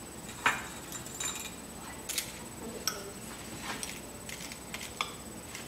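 A utensil clicking and scraping against a small bowl of melted chocolate as pretzels are dipped and stirred, in about half a dozen light, irregular taps.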